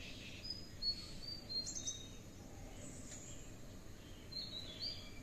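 Small birds calling faintly: scattered short, high whistled chirps in small clusters over a quiet outdoor hush.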